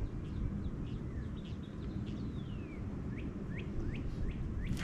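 Birds chirping: a string of short, quick upward chirps, coming faster near the end, with one longer falling whistle about two seconds in, over a steady low outdoor rumble.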